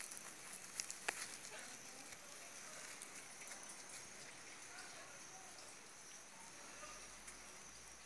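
Hand digging and scraping through loose soil around a sweet potato tuber, with a few sharp crackles in the first second or so, then faint soft rustling of earth.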